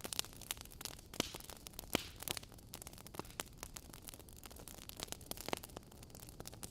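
Logs burning in a fireplace, crackling with irregular snaps and pops over a soft steady hiss; the sharpest pops come about one and two seconds in.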